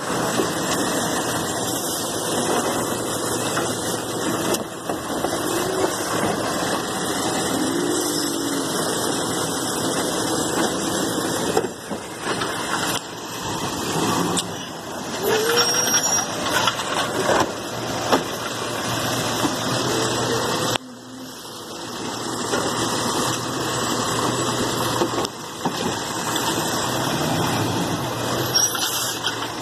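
Automated side-loader garbage truck's diesel engine running steadily, with a few short rising-and-falling whines and some sharp knocks partway through.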